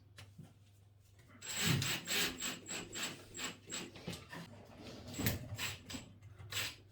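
Irregular rubbing and scraping strokes, a few a second, starting about a second and a half in, as the new toilet cistern is handled.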